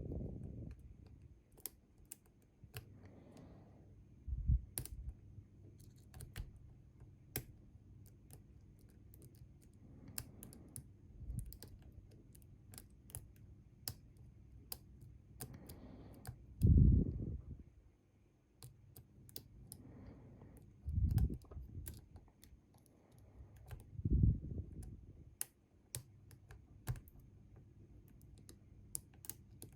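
Small, irregular clicks and ticks of lock picks working inside a Bi-Lock cam lock during a picking attempt. A few louder low thumps come every few seconds, the loudest about two-thirds of the way through.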